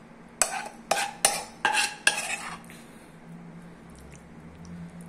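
Steel spoon scraping and clinking against a ceramic plate while mixing thick masala through chicken pieces: five quick strokes in about two seconds, then quieter.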